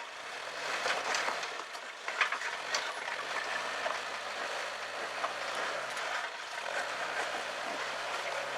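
Suzuki Jimny Sierra crawling slowly over rocks: a low, steady engine hum under many irregular clicks, knocks and crunches from the tyres and chassis on stone, with a steady hiss behind.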